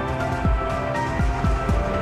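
Background music with a steady kick-drum beat over held notes.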